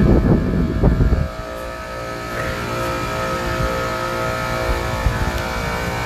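Large commercial HVAC unit running with its first- and second-stage compressors on, building head pressure: a steady mechanical hum with several held tones. A loud, irregular low rumble covers the first second or so and stops abruptly.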